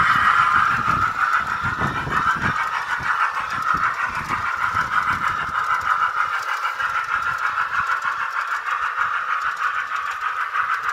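Diesel or steam engine sound from a G-scale model locomotive's sound system, played through a poor speaker: thin and tinny, with a fast rattling texture and almost no bass. A lower rumble drops away about three seconds in.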